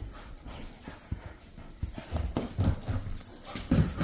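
Golden retriever puppy mouthing and chewing a furry cat-toy ball, making irregular soft thumps and scuffling, with the loudest knocks in the second half.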